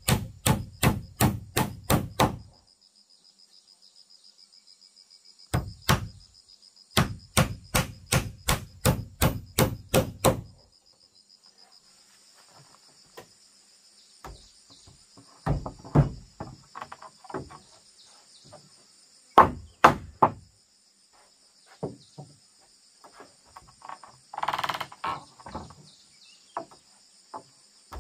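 A claw hammer drives nails into a wooden trim strip on a plank floor: fast, even strikes, about three to four a second, in two runs in the first half. After that come scattered wooden knocks and a scrape as wall planks are set in place, over a steady high insect drone.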